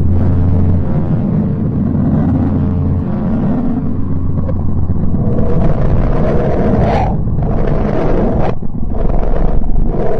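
Deep, droning space-style rumble presented as the sound of Pluto: a steady low hum with layered tones, then hissing, rushing noise that swells and cuts in and out abruptly in the second half.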